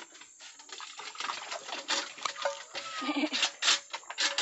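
Wet pig feed sloshing in a metal bucket and poured out, splashing and clattering into a wooden trough, louder from about a second in, with a black pig's grunts as it pushes in to eat.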